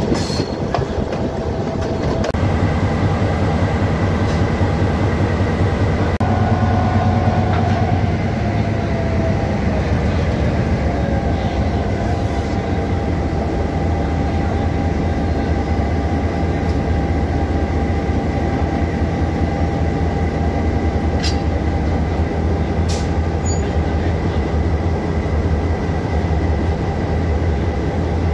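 Diesel locomotive running steadily, a low even engine hum mixed with the noise of the train moving along the track.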